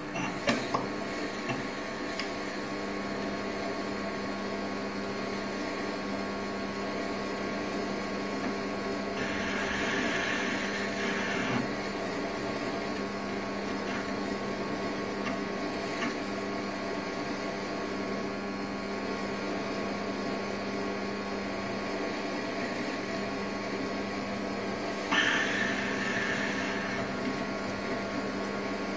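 Optimum D180 x 300 mini lathe running steadily, its four-jaw chuck spinning while a twist drill in the tailstock bores into the workpiece. A harsher, higher hiss comes in twice, about ten seconds in and again about twenty-five seconds in, with a few sharp ticks right at the start.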